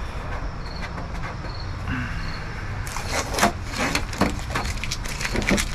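Blue painter's tape being peeled off a plastic bumper panel: a run of short, sharp crackling rips starting about three seconds in.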